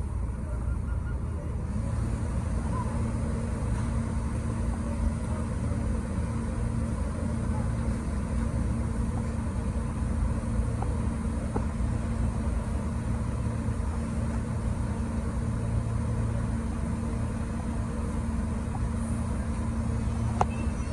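Steady hum of a New York subway train standing at the platform, its ventilation and on-board equipment running, with a constant low drone and a steady tone above it.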